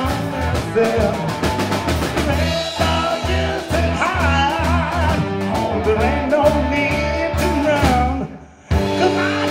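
Live rock band playing: a male singer over electric guitar, bass guitar and drum kit, with a steady beat. A little over eight seconds in, the whole band stops dead for about half a second, then comes straight back in.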